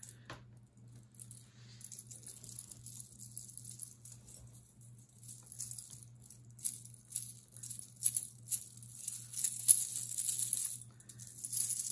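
Jewelry pieces rattling and jingling as they are handled and shaken, a light clicking clatter that grows busier from about five seconds in.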